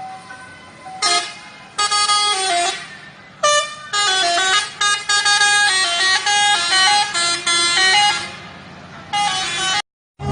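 Bus telolet horn of SCH 716 playing a tune: a quick run of short musical horn notes jumping between pitches, starting about a second in and going on until about eight seconds, with one more short blast near the end before the sound cuts off.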